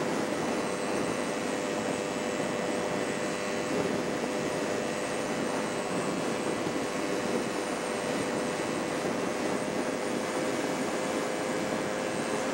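Steady drone of a car driving along a paved road, with a faint steady whine running through it.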